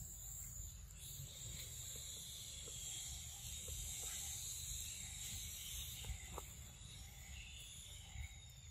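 Insects droning steadily in the surrounding vegetation, a high, even buzz in two pitches, over a low rumble and a few faint soft ticks.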